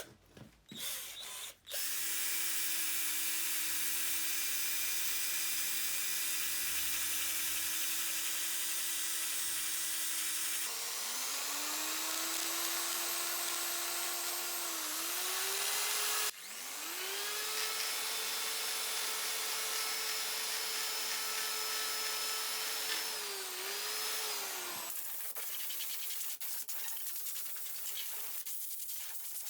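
An electric power tool's motor whining at a steady speed, then stopping and spinning up again twice, the second time to a higher pitch, with brief dips in speed as it meets load. It cuts off near the end, leaving a quieter noise with no tone.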